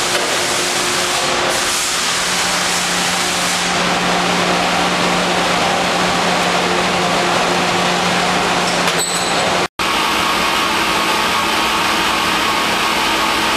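84-inch Blanchard rotary surface grinder running: a loud, steady machine noise with a faint low hum. It breaks off for an instant about ten seconds in, then the same steady noise resumes as the wheel works over the steel riser table.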